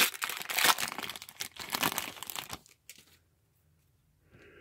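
Foil wrapper of a 2018 Bowman baseball card pack crinkling as it is torn open and handled. It is a dense run of crackles that stops about two and a half seconds in.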